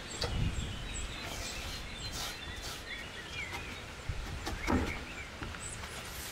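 Outdoor rural background noise with birds chirping a few times.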